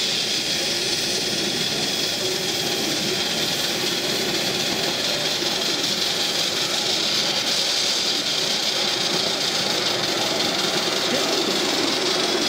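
Live-steam 3½-inch gauge model BR 9F locomotive standing in steam, with a steady hiss of steam and a rough rumble underneath.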